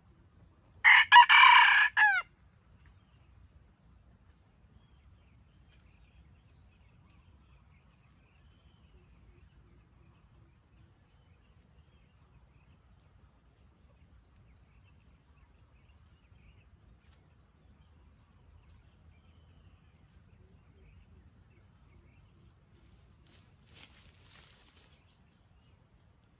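Red junglefowl rooster crowing once, a single loud, close crow lasting about a second and a half, starting just under a second in.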